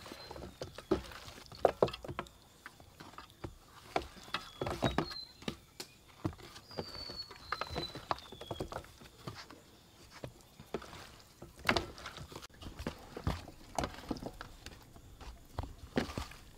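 Hands turning and pressing chicken wings in dry flour in a stainless steel bowl: soft, irregular scuffing and patting, with scattered sharp taps of fingers against the metal bowl.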